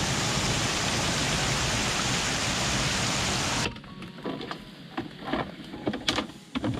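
Steady rushing of a rain-swollen waterfall pouring over a dam, cutting off abruptly about three and a half seconds in; after it come only scattered faint knocks and rustles.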